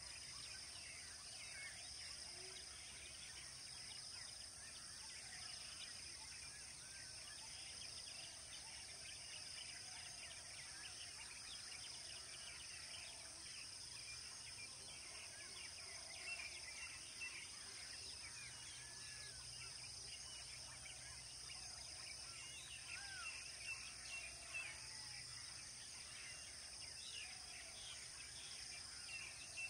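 Faint natural ambience: a steady high insect drone with many short bird chirps and calls scattered throughout.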